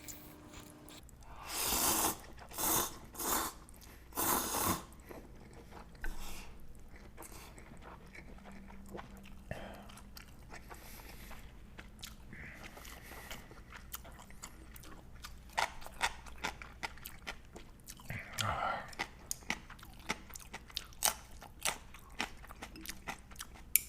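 A person eating ramen noodles close to the microphone: four loud slurps in the first five seconds, then chewing with many small clicks and smacks, and another slurp later on.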